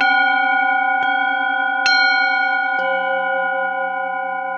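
Singing bowls struck one after another with a wooden mallet, four strikes about a second apart. Each strike leaves a long ringing tone that overlaps the ones before it, so several bowls ring together. The low tones waver slowly, and the strike near the middle is the loudest.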